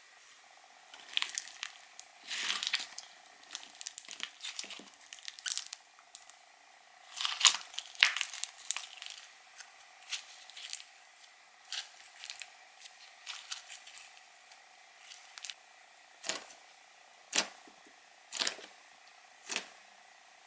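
Slime being handled: sticky crackling and squishing in irregular clusters, then single sharp pops about once a second near the end.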